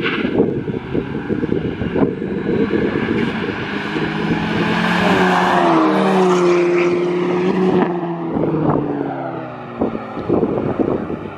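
Two cars drive past at speed, the red hatchback passing close by about six seconds in: its engine note climbs and grows loud as it approaches, then drops in pitch and fades as it goes by. A low rumble of wind on the microphone runs underneath.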